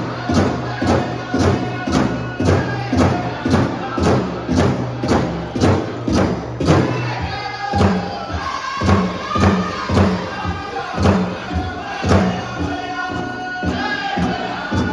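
Powwow drum group: a large drum struck in a steady beat, about two beats a second, with a group of voices singing over it, the singing strongest in the second half.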